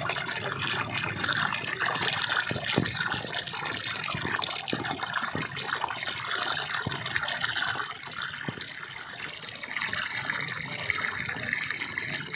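Water gushing out of a white plastic pipe into a shallow pool: a steady rushing splash, a little quieter from about eight seconds in.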